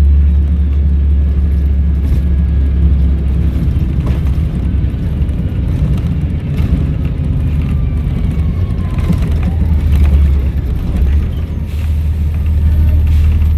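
Volvo B7RLE bus's six-cylinder diesel engine running under way with a heavy low rumble. Faint whistles slide in pitch over it: the turbo whistle. The engine eases briefly near the end.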